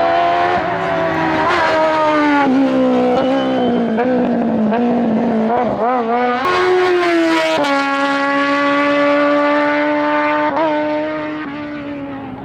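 A race car's engine running hard at high revs, its note stepping abruptly between gears a few times, then holding steady and easing off slightly near the end.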